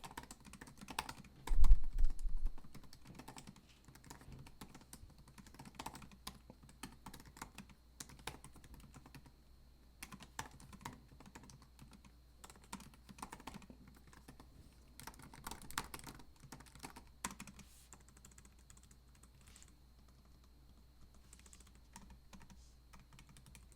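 Typing on a 2016 MacBook Pro's low-travel butterfly-switch keyboard: quick runs of light key clicks with short pauses between them. A loud low thump comes about two seconds in.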